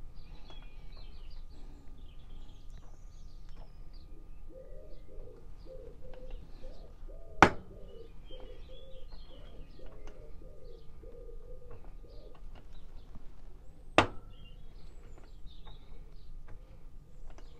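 Two sharp knocks, about seven and a half and fourteen seconds in, as a mallet taps a 4-inch four-jaw self-centring chuck on its back plate to true it on a mini lathe. Birds chirp and a pigeon coos in the background.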